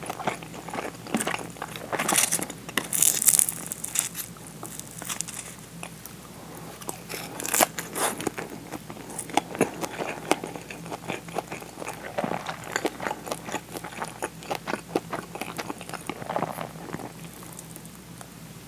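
Close-miked eating: crisp seasoned nori wrapped around rice crunching, loudest about two to three seconds in, then chewing with many small wet mouth clicks and a few more crunches, one sharp one near eight seconds.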